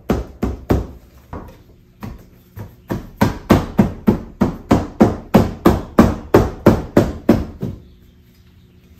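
Open palm smacking a new window-sill weatherstrip molding along the top of a 2009 Honda Civic's front door, seating it onto the door. The blows come in a steady run of about three sharp smacks a second, grow louder midway and stop near the end.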